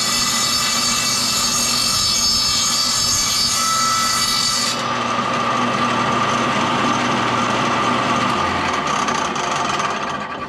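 Old belt-driven Craftsman table saw running, a rattly motor-and-blade sound with the belt vibrating. The owners trace the rattle to a loose pulley and suspect worn bearings.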